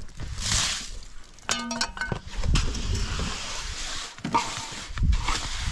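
A mason's trowel working wet cement, scraping and clinking, with a short pitched squeak about one and a half seconds in and a long rough scraping stretch after it.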